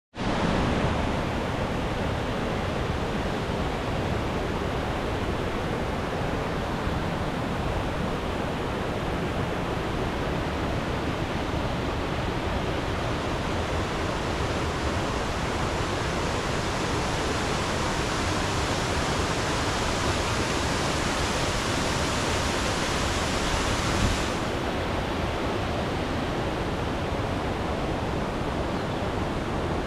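Waterfall rushing: a steady, dense noise of falling water, with a brighter hiss in the upper range for a stretch in the middle that cuts back abruptly about two-thirds of the way through.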